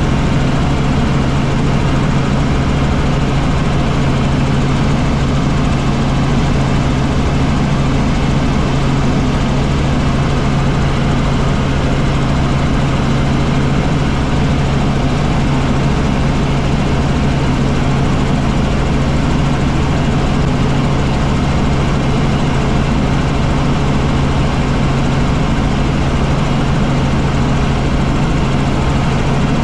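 Helicopter in steady flight: a constant, unchanging drone of engine and rotors, a low hum over an even rush of noise.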